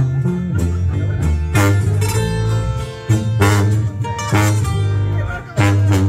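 Sierreño music: strummed and plucked guitars over a tuba bass line, the bass notes changing about once a second.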